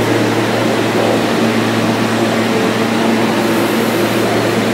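NYC subway train standing at the platform with its on-board equipment and air-conditioning running: a loud, steady hum with a constant low drone.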